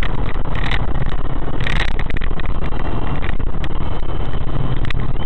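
Loud, steady vehicle noise, a dense rumble with a heavy low end.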